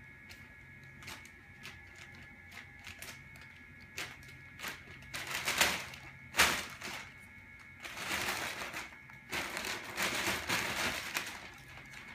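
Thin plastic bag crinkling and rustling in irregular bursts as cats paw at it, nose into it and walk on it; the sharpest, loudest rustle comes about six seconds in, with longer stretches of rustling near the end.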